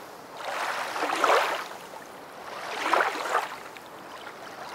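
Rushing water, a hiss with no steady pitch that swells and fades twice, about a second in and again about three seconds in.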